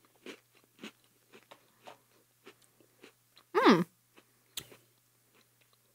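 Close-miked chewing of chocolate-covered peanut butter cookies, faint crisp crunches about twice a second. About three and a half seconds in a short hummed 'mm' falls in pitch, followed by a single click.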